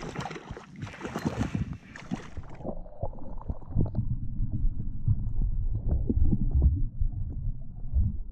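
A hooked fish splashing and thrashing at the water's surface beside a boat. About two and a half seconds in, the sound turns muffled, as heard through an underwater camera: a low rumble with knocks as the fish struggles on the lure.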